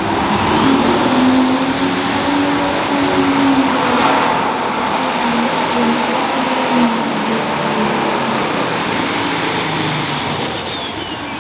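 Turbocharged diesel engine of a Pro Stock pulling tractor running hard under full load during a pull, its turbo whistle climbing over the first few seconds, holding high, then falling away near the end as the engine backs off.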